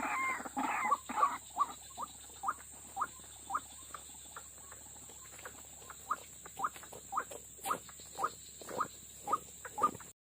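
White-breasted waterhen calling: a few loud, harsh calls at the start, then a long series of short, clipped notes about one to two a second.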